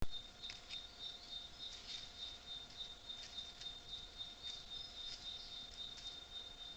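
Faint woodland ambience: a steady, high-pitched insect trill with a slight pulse, with scattered short chirps and clicks over it.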